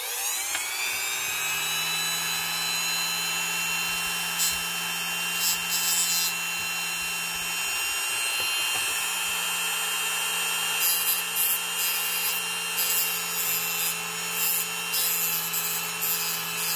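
A Dremel rotary tool fitted with a cutting wheel spins up to a steady high whine. It then grinds into the hard plastic hook of a toy missile launcher, making intermittent scratchy bursts a few seconds in and more often in the second half, as the hook is being reshaped so the missile will catch.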